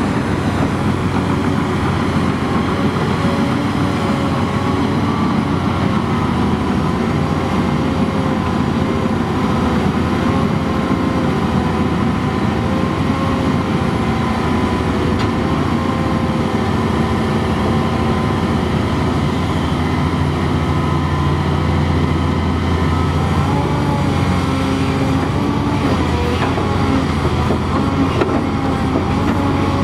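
Komatsu PC800LC hydraulic excavator working a digging and loading cycle: a loud, steady diesel engine drone with higher tones that waver slightly in pitch as the machine works.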